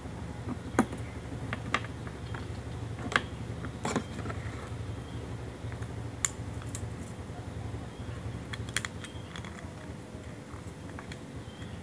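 Irregular light metallic clicks and taps as a coiled steel mainspring is handled and wiped with a cloth, over a steady low hum.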